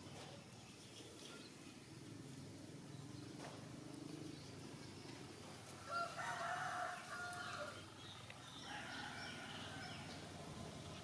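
A rooster crowing once, loud and drawn out, about six seconds in, followed by a fainter crow a couple of seconds later, over a low background hum.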